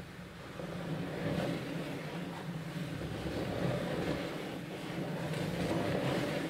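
Hand-turned wooden drawing machine running: its MDF gear wheels and discs rotating with a steady rumble while the pen arm drags its pen over the paper, a little louder from about half a second in.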